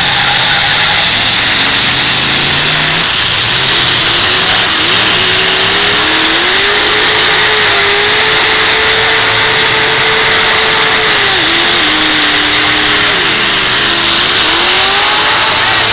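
Demolition derby car engines revving hard. One engine climbs and holds at high revs for several seconds, drops about eleven seconds in, then dips and climbs again near the end.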